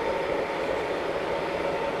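Large-scale garden model train rolling along its outdoor track, a steady rumble of many wheels on the rails.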